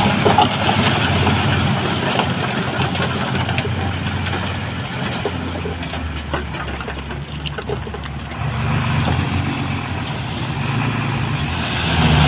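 Heavy diesel engine of earthmoving machinery running. It falls off somewhat in the middle, then picks up and grows louder about two-thirds of the way through and again near the end, with scattered light knocks.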